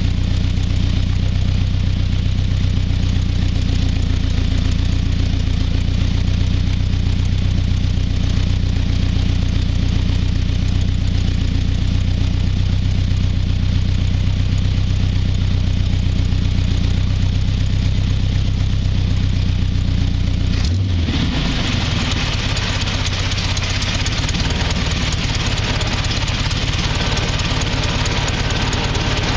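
Hot rod's engine running at idle on its first start after sitting all winter. About 21 seconds in, the sound changes abruptly from a steady low drone to a rougher, hissier note.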